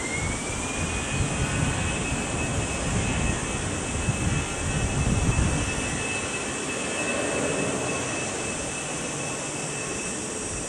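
Airbus A320-214's CFM56 jet engines at takeoff power. A high whine rises in pitch at the start and then holds steady, over a low rumble that grows loudest about halfway through and then eases.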